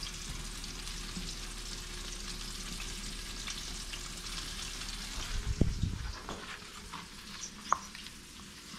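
Flour-dredged fish fillets sizzling steadily in hot oil in a frying pan, a constant crackling hiss. A loud low thump comes a little past halfway, and a single sharp knock near the end.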